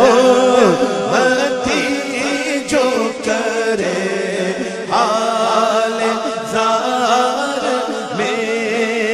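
Male naat reciter singing unaccompanied into a microphone: long held notes that bend and turn in ornamented runs, with a steady low drone beneath.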